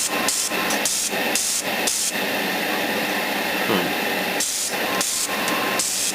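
Airbrush spraying acrylic paint, a hiss that cuts in and out in short strokes for the first couple of seconds, runs steadily for about two seconds, then goes back to short strokes near the end.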